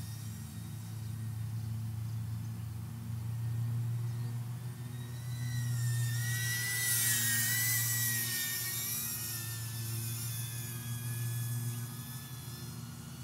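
DJI Avata FPV drone's propellers whining in flight. The high whine swells and wavers in pitch from about halfway through, then fades, over a steady low hum.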